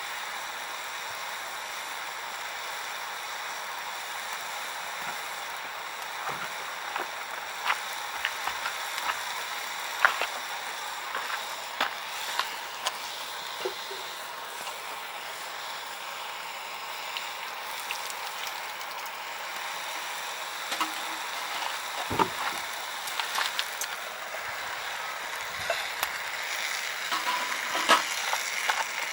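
Softwood firewood burning in a campfire stand, crackling and popping irregularly over a steady sizzling hiss, with one heavier knock a little past the middle.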